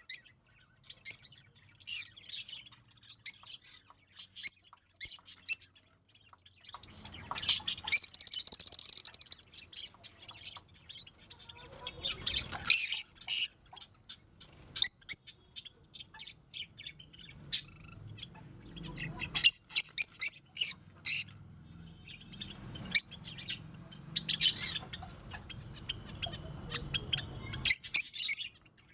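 Peach-faced lovebirds chirping and squawking: short, shrill calls given singly and in quick runs, with a denser burst of chattering about eight seconds in and more clusters of calls later.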